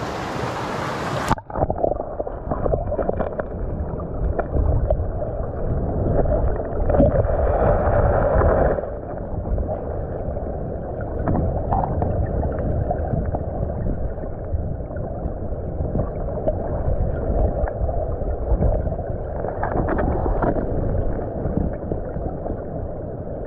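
Fast-flowing stream current heard from underwater through a submerged camera: a muffled rushing and gurgling rumble. The sound dulls suddenly about a second in, as the camera goes under.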